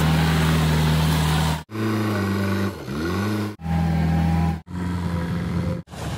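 Diesel engines of earth-moving machines running in a string of short clips, each cut off abruptly. In one clip the engine note dips and climbs back up.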